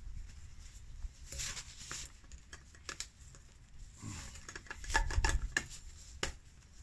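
Rustling of a nylon stuff sack and light clicks of metal as a nested cook pot is worked down into the bag and the drawstring is pulled shut, loudest about five seconds in.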